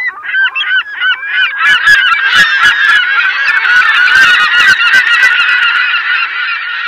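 A flock of birds calling, many short calls overlapping more and more densely from about a second and a half in, with scattered sharp clicks among them.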